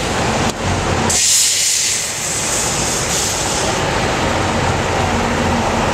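Diesel engine of an 8x8 off-road trial truck running under load, a steady low hum. About a second in, a loud hiss starts and lasts a couple of seconds.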